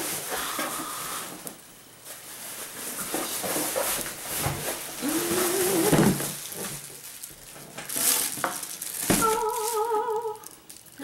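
Plastic bag and packaging crinkling and rustling, with cardboard scraping, as an electric pressure cooker is pulled out of its box. A voice hums briefly, a short wavering note near the end.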